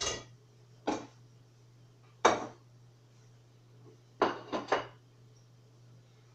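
Kitchenware knocking and clinking as it is handled: six sharp, ringing hits. One comes at the start, one about a second in, the loudest just past two seconds, and three in quick succession about four seconds in. A steady low hum runs underneath.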